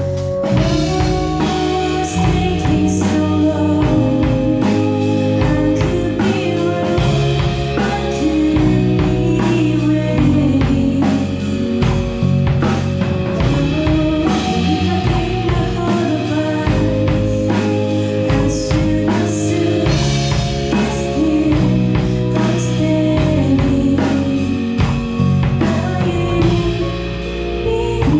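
A live band playing a song: a young woman sings into a microphone over electric guitar, keyboard and drums.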